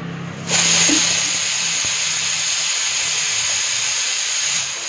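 Stovetop pressure cooker cooking dal lets off its whistle: a loud hiss of escaping steam with a steady high whistle in it. It starts abruptly about half a second in, runs about four seconds and fades near the end. The weight valve is lifting to vent steam because pressure has built up inside.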